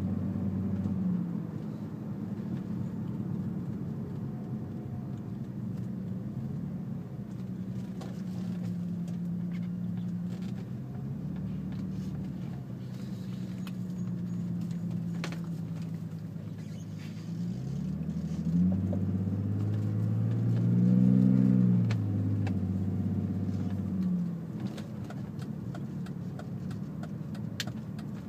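BMW E39 520i's M54 straight-six running through straight-pipe exhaust with resonators, a steady low drone while cruising. About two-thirds of the way in, the engine revs climb and get louder, peak, then drop back as it eases off.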